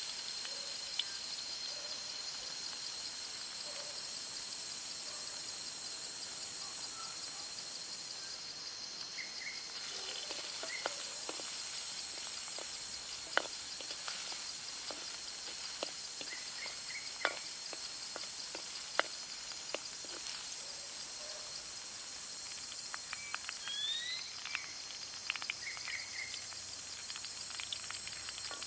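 Insects droning in a steady high-pitched whine, with scattered short bird chirps and a few sharp clicks.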